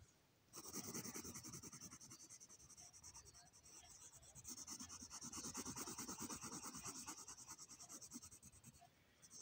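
Coloured pencil shading back and forth on workbook paper: a faint, quick, even scratching of strokes that starts about half a second in, eases for a moment about four seconds in, and stops just before the end.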